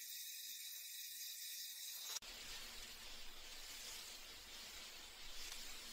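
Faint steady hiss, high-pitched at first, switching about two seconds in to a fuller, deeper faint noise.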